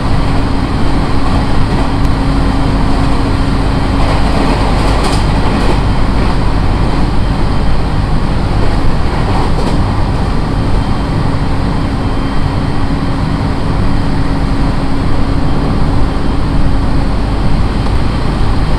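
Running sound inside a JR East 701 series electric multiple unit car under way: steady rail and wheel noise with a low steady hum that drops out about four and a half seconds in and comes back later.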